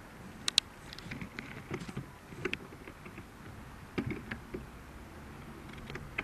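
Bicycle with knobby tyres rolling over paving, with a low rumble and irregular sharp clicks and rattles from the bike as it jolts over the slab joints. The loudest click comes about half a second in.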